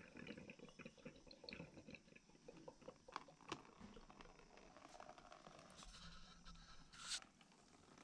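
Faint dripping and trickling of water from an opened radiator valve into a plastic tub, with small ticks of handling. A brief louder rustle about seven seconds in.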